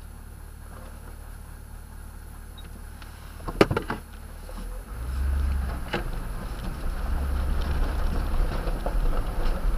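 Toyota Tundra pickup heard from inside the cab: the engine idles low, then a few sharp clicks and a clunk come about three and a half seconds in. From about five seconds the truck moves off slowly, and the engine and tyre rumble on the gravel grow louder and stay up, with another click about a second later.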